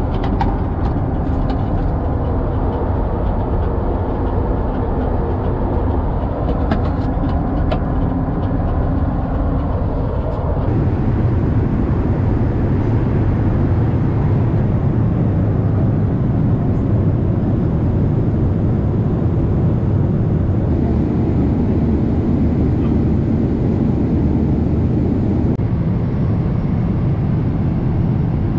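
Steady in-flight cabin noise of a Boeing 777-300ER: a low rumble of engines and rushing air. Small clicks and taps come through during the first ten seconds, and about ten seconds in the rumble grows fuller and louder.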